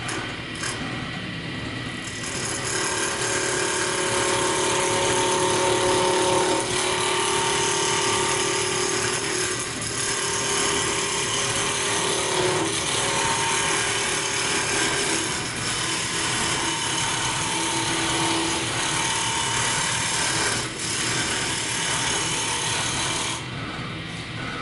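Roughing gouge cutting a spinning spindle blank on a wood lathe: a loud, continuous scraping hiss of shavings peeling off, over the steady hum of the running lathe. The cut starts about two seconds in and stops shortly before the end.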